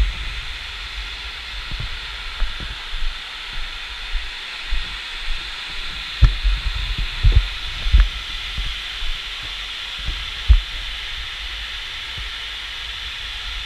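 Steady hiss of water spraying from the rainfall simulator's overhead nozzles, filling the large hall. Irregular low thumps are heard, most of them about six to eight seconds in.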